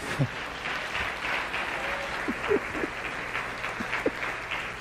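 Church congregation applauding, a dense patter of many hands clapping, with a few voices calling out over it.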